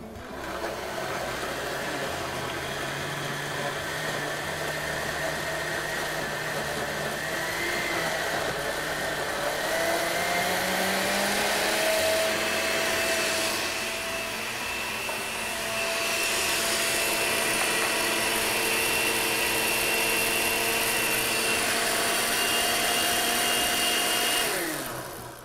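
Countertop blender with a glass jar running steadily, puréeing boiled whole orange pieces and sugar into marmalade. Its whine rises in pitch about ten seconds in, dips briefly a few seconds later, and winds down at the end as it is switched off.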